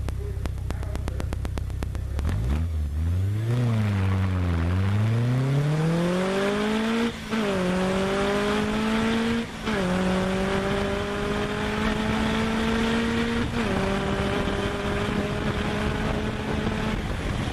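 Caterham Seven's four-cylinder Ford Zetec engine held at steady revs on the start line, then launching from a standing start: the revs climb, dip briefly and pick up again, and it pulls hard up through the gears with three upshifts as it accelerates to full speed.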